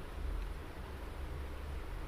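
A person snoring: a low, rumbling breath sound under a steady hiss.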